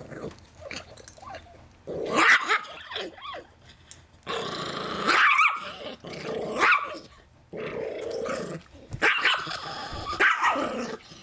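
Chihuahua–miniature pinscher mix dog growling and snarling in repeated loud bouts a second or so long, with barks mixed in, while chewing peanuts: guarding its food.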